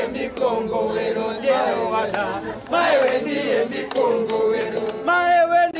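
Music with a group of voices singing and chanting together, the sung lines rising and falling and held across the whole passage.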